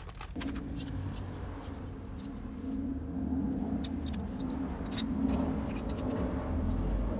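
Honda Grom 125's single-cylinder engine running, coming in abruptly about a third of a second in and running steadily, with scattered light clicks over it.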